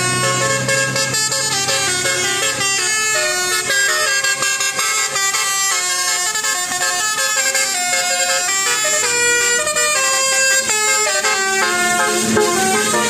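A vehicle horn playing a continuous melody, its notes changing pitch in quick steps with several tones sounding together.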